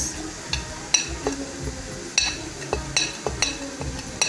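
A metal spoon clinking against a cooking pot: an irregular series of sharp, ringing clinks.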